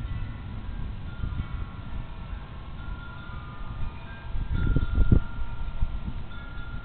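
Wind chimes ringing irregularly in storm wind, several clear tones sounding and fading, over a low rumble that swells about five seconds in.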